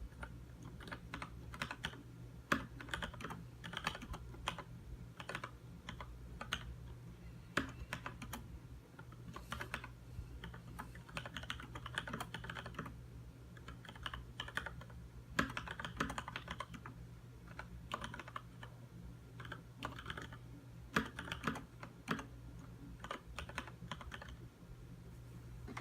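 Typing on a Leopold FC900R mechanical keyboard with Cherry MX Red linear switches: a steady stream of irregular key clacks, some in quick flurries, over a faint low hum.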